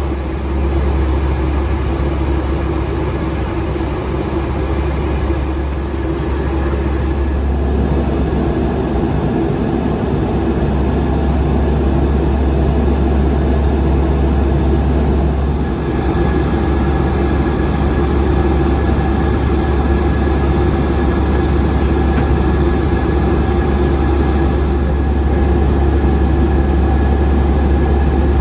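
Cabin noise of a Boeing 757-200 with Rolls-Royce RB211 engines: a steady jet-engine and airflow drone with a deep rumble and several steady tones. A higher tone joins about halfway through as the engine note shifts.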